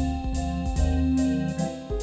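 Yamaha S80 keyboard played live through software instruments: piano-like chords over a low bass line, with a steady high tick on the beat about twice a second.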